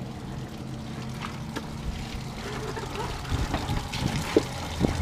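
Water running from a spigot into a gem-mining sluice trough, over a steady low hum, with a couple of light knocks near the end.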